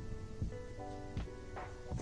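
Background music: a royalty-free electronic track with sustained synth chords and a steady drum beat.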